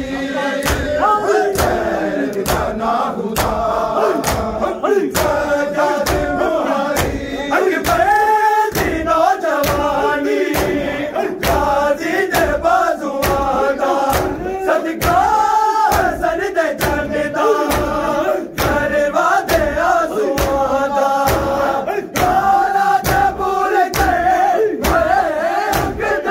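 A group of men chanting a noha together over the rhythmic slaps of hands beating on bare chests (matam). The beats come at about three every two seconds.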